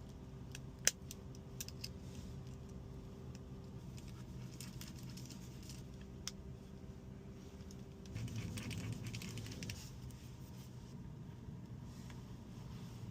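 Faint clicks and rattling from small tools and phone parts being handled, over a steady low hum. There is a sharp click about a second in, and a louder stretch of rustling and handling from about eight to ten seconds.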